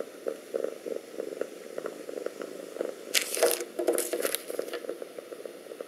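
Thin plastic zip-lock seed bag crinkling in two short bursts a little past halfway as it is picked up and handled. Under it, a cat purrs steadily in soft, even pulses.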